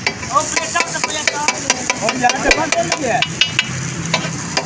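Metal spatulas striking and scraping a big tawa in quick clacks, several a second, over the sizzle of frying food.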